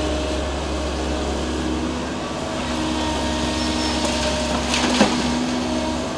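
Outro sound effects: a steady low rumble under a few held tones, with a sharp cracking hit about five seconds in.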